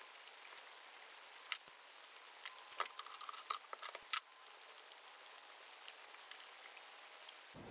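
Faint clicks and rustles of hands handling a chainsaw's plastic housing and new fuel line, a few sharp ticks about a second and a half in and a cluster of them between about two and a half and four seconds in.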